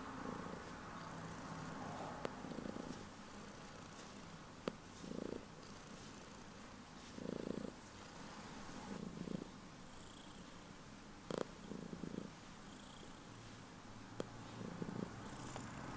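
Domestic cat purring, the low purr swelling and easing every couple of seconds with its breathing, with a few brief sharp clicks.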